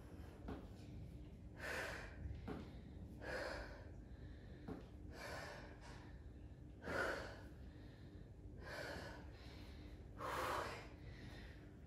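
A woman breathing hard during an intense leg-kick interval, with six short, forceful exhalations about every one and a half to two seconds in time with the kicks.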